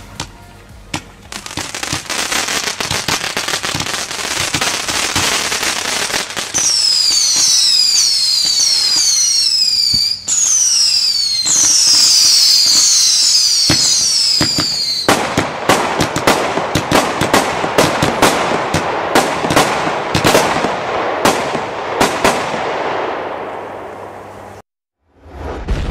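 Weco 'Van Gogh' firework battery firing: a dense run of crackling, then a stretch of whistles one after another, each falling in pitch, then a rapid string of sharp cracks that thins out and stops about a second before the end.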